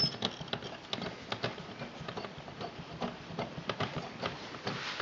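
Light, irregular clicks and ticks, several a second, from the Eddystone receiver's tuning gear and metal chassis being handled.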